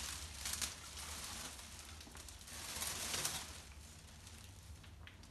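Plastic window-insulation film and its tape being handled, rustling and crackling in uneven spells, loudest about half a second in and again around three seconds. A low steady hum runs underneath.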